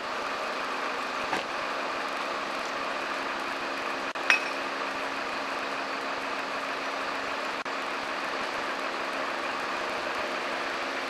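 Crane truck's engine running steadily with an even hum, and a sharp metallic clink about four seconds in.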